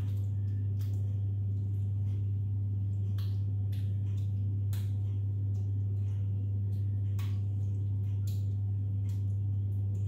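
Wooden spoon knocking and scraping in a saucepan as bolognese mince is spooned out into a glass dish, heard as scattered light clicks and taps with soft squishing, over a steady low hum.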